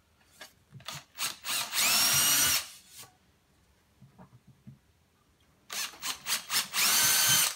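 Power drill boring holes in an MDF baseboard: a few short blips of the trigger, then a steady run of about a second, twice over.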